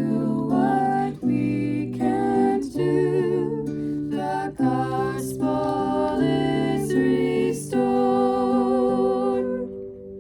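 Closing bars of a song: a sustained vocal line over guitar chords, fading out near the end.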